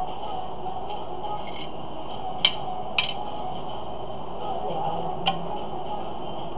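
A few sharp clicks and taps of small hard parts being handled during a laptop screen replacement. The two loudest come about half a second apart near the middle, with a lighter one near the end, over a steady background hum.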